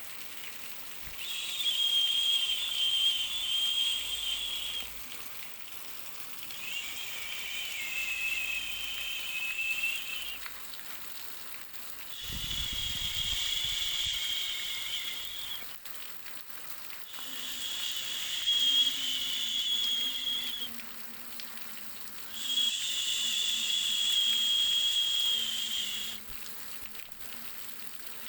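Baby sleep noise track: a high hiss with a whistling tone in it, swelling and fading in pulses of about three seconds, six times over.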